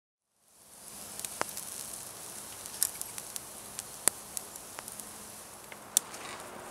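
Pork chops sizzling on a wire grill rack over campfire embers: a steady high hiss fading in over the first second, broken by sharp crackling pops, the loudest about four and six seconds in.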